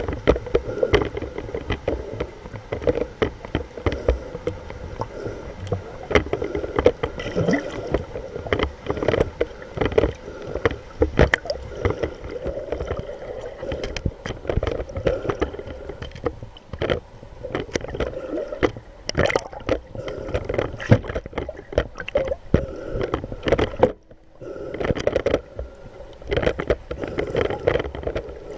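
Muffled underwater sound picked up by a camera in a waterproof housing: water rushing and sloshing past the housing, broken by many sharp clicks and knocks. The sound cuts out for about a second near the end.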